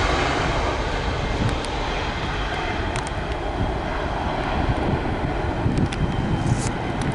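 Jet airliner's engine noise dying away after a pass, a broad steady roar that eases over the first couple of seconds and then holds, with gusty wind buffeting the microphone underneath.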